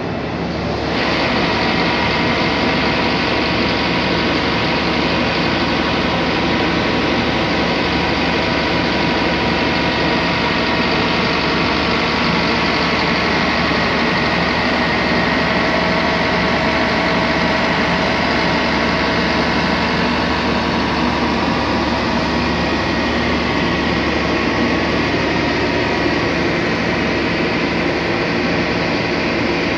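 Sperry rail test car's diesel engine idling steadily, an even drone with a few constant whining tones that gets a little louder about a second in.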